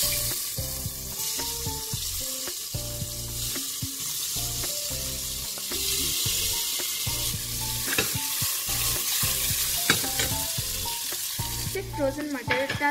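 Chopped paneer sizzling in hot ghee with cumin and cashews in a pressure cooker, with a few light clicks; the sizzle stops near the end. Soft background music with held notes plays underneath.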